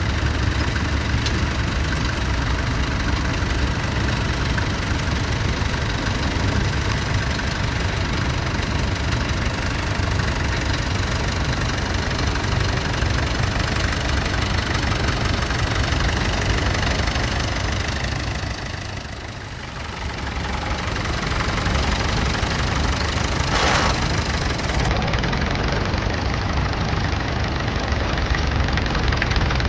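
Vintage tractor engine running steadily with a knocking beat, dipping briefly about two-thirds of the way through.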